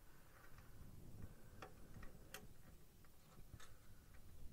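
A few faint, irregular clicks of metal tweezers and small plastic kit parts tapping together as an undercarriage part is worked into its locating hole. The sharpest click comes a little past halfway.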